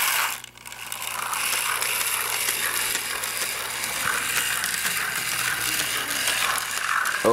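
Cheap toy steam locomotive's motor and gears running in reverse: a steady, rapid mechanical rattle which, listened to closely, carries a chugging beat in time with the turning wheels.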